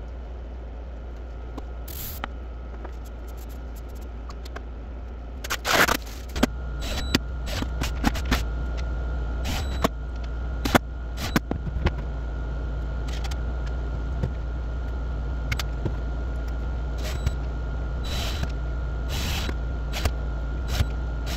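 Scattered clicks, taps and scrapes of hinge hardware and screws being handled and fitted on a plywood lid, over a steady low hum. A faint steady whine joins about six seconds in.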